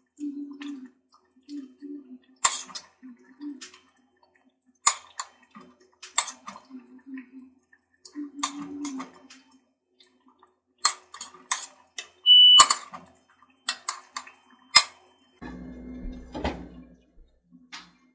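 A serving spoon and lids clinking and scraping against a metal cooking pot and dishes while food is dished up: a dozen or so sharp, irregular clinks, with a longer, rougher rustling and rumbling near the end.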